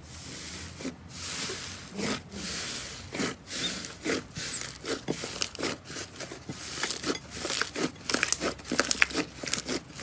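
Slime being squeezed and pressed by hand, making a string of short pops and crackles that come faster and closer together in the second half.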